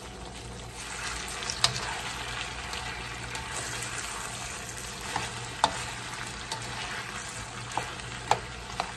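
Sauce and fried chicken sizzling in a hot wok while being stirred with a slotted spoon. The sizzle swells about a second in, and there are a few sharp clicks of the spoon against the wok.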